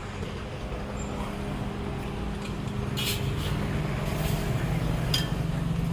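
A motor vehicle engine running, its low hum swelling and dropping slightly in pitch partway through, with a few light clicks over it.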